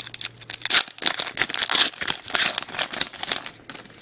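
Thin plastic wrapper of a retail hockey card pack crinkling as it is torn open and handled, the crackle dying away near the end.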